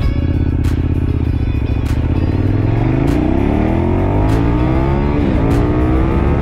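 KTM 1190 Adventure R's 1195 cc V-twin engine accelerating hard under full throttle. The revs climb steeply, drop at an upshift a little after five seconds in, then climb again.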